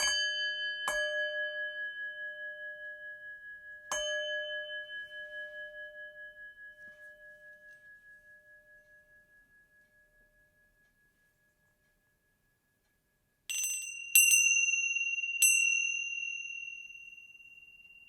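A singing bowl struck three times, its low tone pulsing as it rings and fading out over several seconds. Near the end a higher-pitched small bell is struck three times and rings on: a mindfulness bell, a prompt to return to the present moment.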